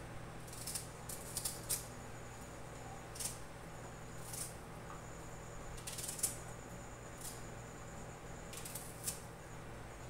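A small kitchen knife slicing through firm, peeled raw mango, giving short crisp cutting sounds at irregular intervals, the loudest about six seconds in, over a faint steady hum.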